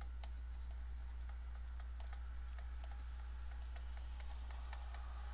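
A stylus tapping and scraping on a tablet screen during handwriting, making a scatter of light, irregular clicks. Under them runs a steady low electrical hum.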